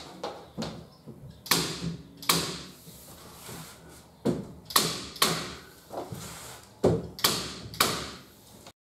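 Corded electric staple gun firing staples through PVC ceiling cladding into timber battens: about a dozen sharp shots at uneven intervals, a few in quick pairs.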